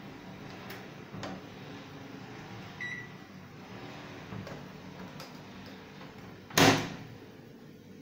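LG microwave oven giving one short high keypad beep about three seconds in as its control panel is pressed, with a few light clicks of handling, then its door being shut with a loud clunk of the latch near the end.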